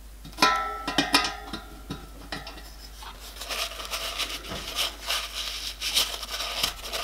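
A few sharp metallic clinks that ring briefly, metal against the small copper boiler, followed by a steady scratchy rubbing as a cloth wipes around the boiler's end plate.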